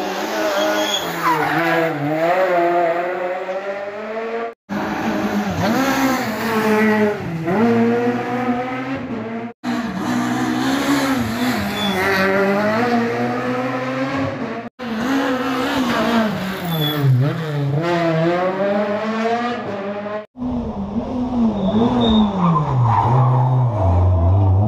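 Rally car engines, a Renault Clio among them, revving hard and dropping back over and over as the cars brake into and power out of tight tarmac corners. The sound cuts out briefly four times, each break bringing another car, and near the end one engine's pitch falls away low as the car slows.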